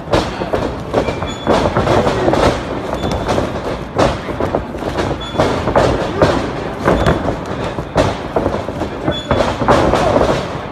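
Wrestlers running across a wrestling ring and taking bumps: a steady run of thuds from feet and bodies hitting the ring's canvas-covered boards.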